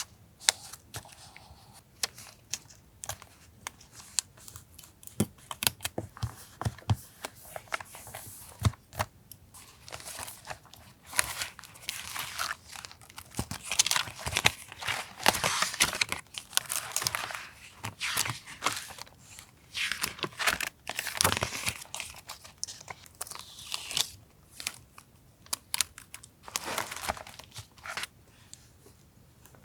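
Paper being handled close up for a collage journal: rustling, crinkling and tearing, with scattered light taps and clicks between longer stretches of rustle.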